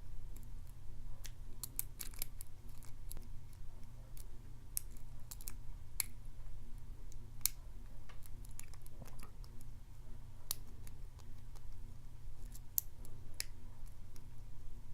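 Lock pick and tension wrench working the pins of a Morris LOTO padlock's 5-pin brass cylinder: small irregular metallic clicks and scrapes, over a steady low hum.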